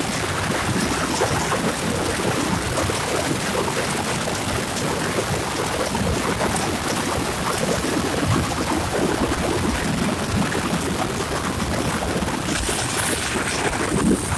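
Steady wind rushing over the microphone of a camera moving at road speed.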